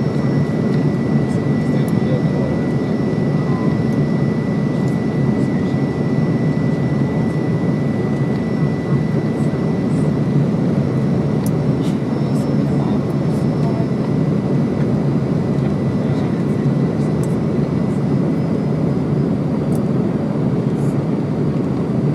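Steady low rumble of an airplane during landing, with a faint steady high tone that fades out about halfway through.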